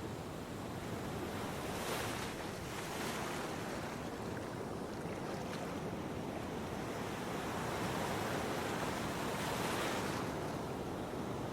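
Big ocean waves breaking, a steady surf noise that swells louder about two-thirds of the way through, with wind buffeting the microphone.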